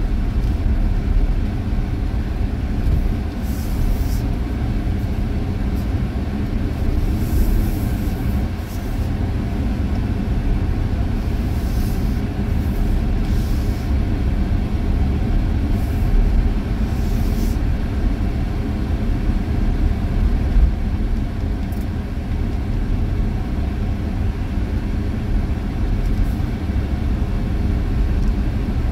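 Road and engine noise heard inside the cab of a moving vehicle: a steady low rumble, with short hisses now and then.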